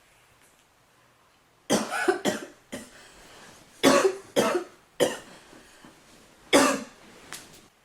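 A woman coughing in short fits after inhaling vape vapour: harsh coughs in pairs about two and four seconds in, then single coughs about five and six and a half seconds in.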